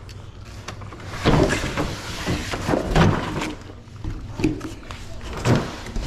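Handling noises: several separate knocks and scrapes a second or so apart, over a low steady hum.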